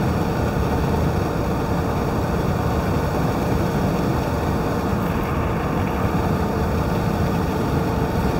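Steady road and engine noise heard inside the cabin of a moving vehicle: a low, even rumble of tyres and engine.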